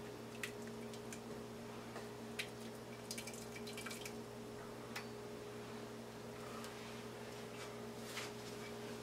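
Silicone spoon stirring gravy in a metal stockpot: soft scrapes and light taps against the pot, with the gravy bubbling as it comes back to a boil, over a steady low hum.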